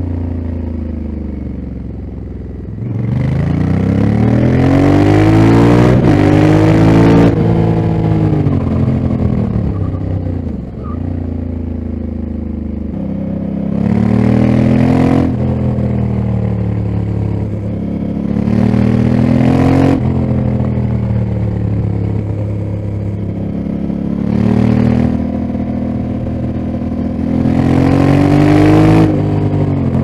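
Honda Africa Twin 1100's parallel-twin engine on the move: a long pull with the revs climbing from about three seconds in, then backing off, followed by four shorter bursts of throttle with the revs falling away between them. A hiss rises with each pull.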